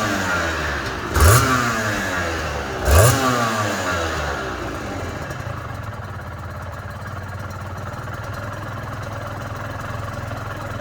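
Aprilia RS250 Mk1's two-stroke V-twin engine blipped sharply twice, its pitch falling back after each rev, then settling into a steady idle.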